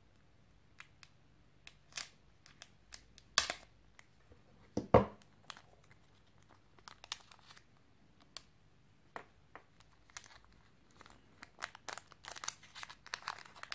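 Clear plastic packaging bag crinkling and tearing as it is slit open with a folding knife and handled, with scattered sharp clicks. A single thump about five seconds in is the loudest sound, and the crinkling grows dense near the end.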